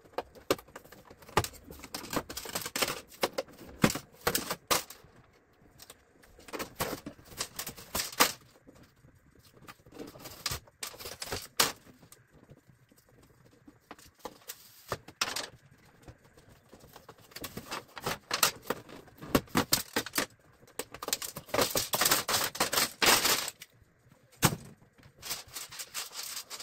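Irregular bursts of clicking, scraping and tapping as LED backlight strips are pried off and handled against a TV's sheet-metal back frame.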